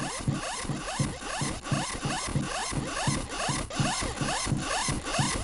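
A heavily effected, rhythmic rasping sound, like a zipper being pulled over and over, about four strokes a second, each with a low thump and a quick rising sweep.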